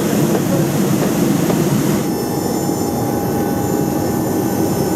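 Cabin noise of a Boeing 737-800 on the ground before takeoff: a steady rushing hum. About two seconds in, the higher hiss drops away and faint steady whining tones are left.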